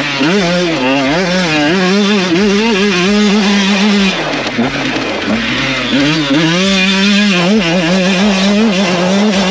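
GASGAS MC125 two-stroke single-cylinder engine revving hard under riding. The pitch rises and falls constantly with the throttle; it drops briefly about four seconds in, then climbs again.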